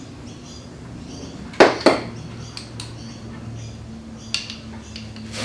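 Two sharp metal clacks in quick succession about a second and a half in, from metal tools or fittings handled during work under a car, with a lighter click near the end, over a steady low hum.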